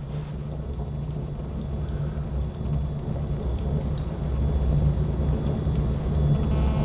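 Rawhide frame drum played softly and continuously, giving a low rumble that slowly grows louder. The skin has gone slack and dull from damp and is just starting to regain its tone as it is warmed by the fire.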